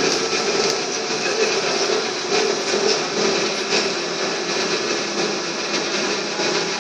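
Cabin noise of a Škoda 15Tr electric trolleybus under way: the traction drive and tyres running steadily, with a faint wavering tone underneath.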